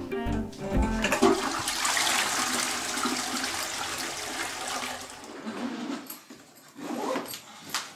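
A toilet flushing: a rush of water starting about a second in and dying away over the next four seconds.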